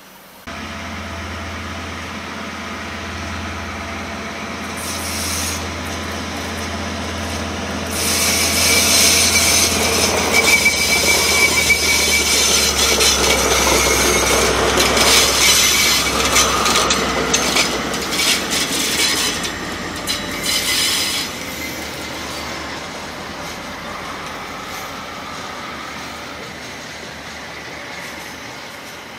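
KiwiRail DL-class diesel-electric locomotive hauling a freight train of flat wagons past at speed. Its engine rumble builds as it approaches and gets much louder about eight seconds in, with a high steady wheel squeal and rail clicks as the locomotive goes by. After that it settles to the quieter rolling of the wagons.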